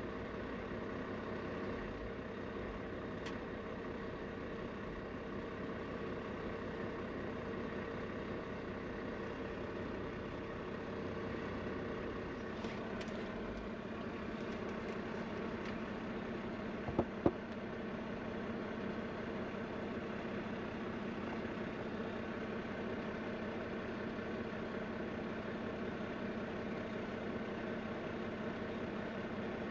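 Semi-truck engine running steadily, heard from inside the cab as an even hum. A single sharp click a little past halfway.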